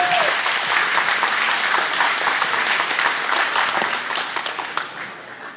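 Crowd applauding after a speech, with a few whoops right at the start; the clapping dies away over the last second or so.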